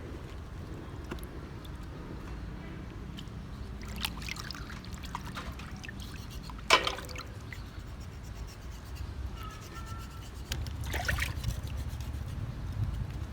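Water trickling and being poured, with scattered light knocks and one sharp knock about halfway through.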